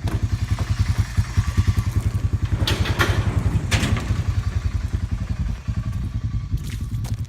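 Tractor diesel engine idling with a steady, fast low throb. A few sharp clicks or knocks come through it about three seconds in and again near the end.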